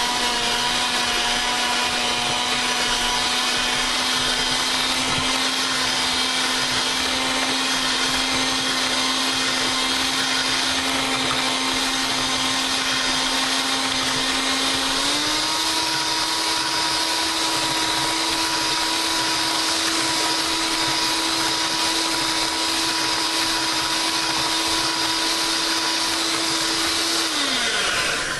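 Electric mixer with beaters running steadily while beating chopped strawberries into a cream cheese and powdered sugar mixture. Its motor pitch steps up about halfway through, then winds down and stops near the end.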